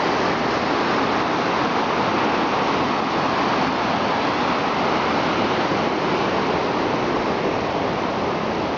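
Whitewater rapids of a river rushing over rocks: a loud, steady roar of water.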